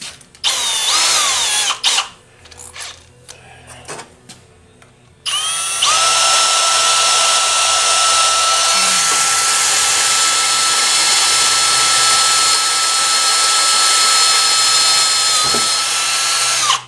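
Electric drill motor whining: a short burst whose pitch sags under load and recovers, then a long steady run of about eleven seconds that stops just before the end.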